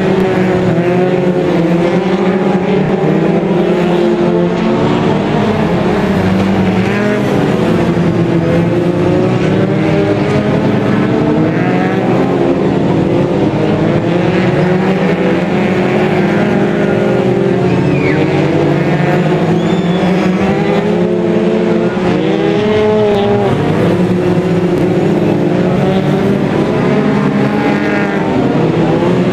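Several racing stock car engines running hard together, their pitch rising and falling as the cars accelerate down the straights and ease off for the bends.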